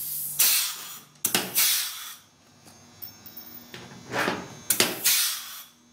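Pneumatic pop-rivet gun setting rivets through a plastic race-car body panel: short bursts of air hiss, coming in two pairs, one around a second in and one around four to five seconds in, some led by a sharp snap as the rivet mandrel breaks off.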